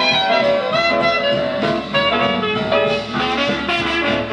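Music from a vinyl record on a turntable, played through a Cygnus AC-200 stereo integrated amplifier and loudspeakers.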